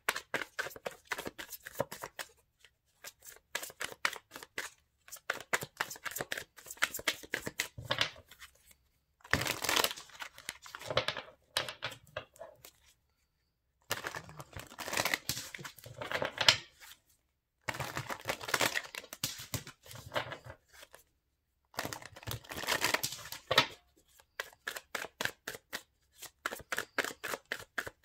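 A deck of oracle cards being shuffled by hand: runs of quick card flicks and slides, in several bursts separated by brief pauses.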